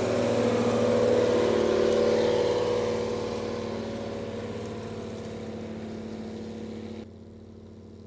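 Mercedes-Benz Unimog 1700's diesel engine running steadily under load as it pulls a plough, loud as it passes close and fading as it draws away; the level drops suddenly about seven seconds in.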